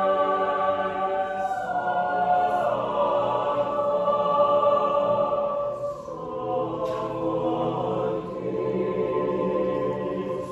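Mixed choir of men's and women's voices singing sustained chords in several parts. The sound dips briefly about six seconds in, at a break between phrases, then the voices come back in.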